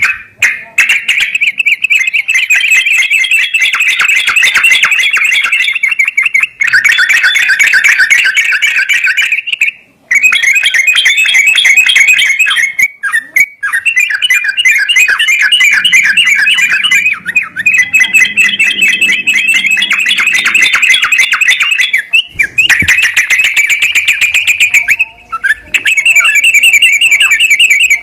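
Songbird singing in rapid, dense chattering trills, in long phrases of several seconds broken by brief pauses.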